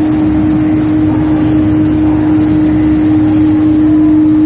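A machine running steadily, with a constant hum over an even noise.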